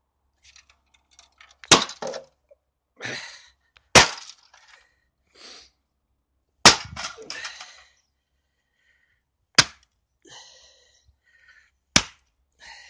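A hammer smashing a D-Link DNS-320L NAS enclosure: five heavy blows, two to three seconds apart, several followed by a short crackle and rattle of breaking plastic and loose parts.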